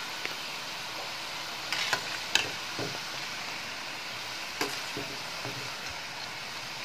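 Aloo rice balls deep-frying in hot oil, a steady sizzle, as they turn crisp and begin to brown. A few short knocks and scrapes come from a slotted spoon stirring them against the steel pan.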